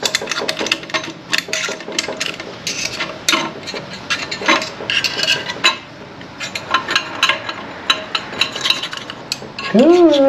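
Irregular metallic clinks and scrapes as the steel and friction plates of a 42RLE automatic transmission's clutch pack are worked loose by hand inside the aluminium case.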